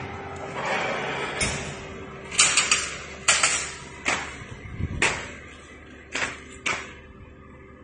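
Vacuum-sealed plastic food packs being dropped into plastic crates: about seven separate slaps and crinkles of plastic, after a short hiss in the first two seconds.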